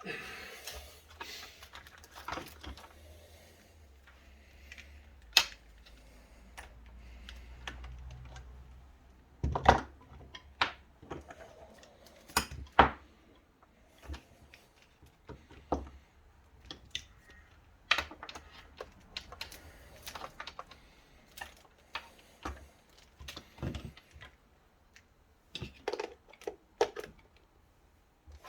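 Irregular clicks and knocks of hands working on an HP Pavilion ze4200 laptop, like keys being pressed and the case being handled while it is tested, with a few louder knocks around ten and thirteen seconds in.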